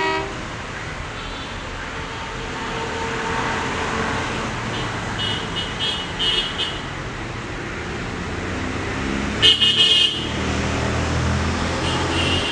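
ALCo diesel locomotive approaching, its low engine rumble building toward the end. A short, loud horn blast sounds about nine and a half seconds in.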